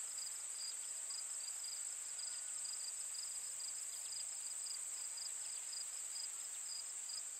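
Insects chirping: a steady high-pitched drone with a second, lower chirp repeating about twice a second.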